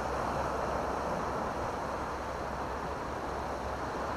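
Steady rushing noise of sea surf washing over rocks, with a low wind rumble on the microphone.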